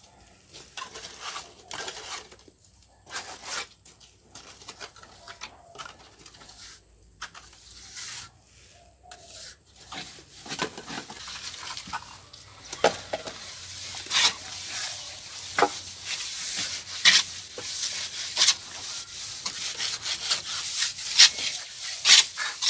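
Hand plastering float scraping and rubbing over fresh cement-sand plaster on a wall in repeated irregular strokes, the strokes louder and closer together in the second half.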